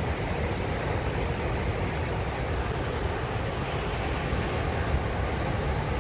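Ocean surf breaking and washing ashore: a steady, unbroken rush of waves.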